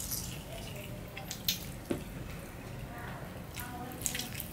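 Fingers squishing and mixing rice with curry and dal on a steel plate, wet and sticky, with a few sharp clicks of fingers against the metal. Near the end, a bite into a fried piece.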